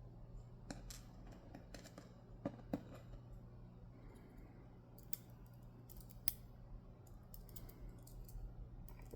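Faint, scattered clicks and taps of small metal lock parts being handled, the discs and spacers of a Dom Diamant disc-detainer cylinder, with a few sharper clicks, two of them close together about two and a half seconds in.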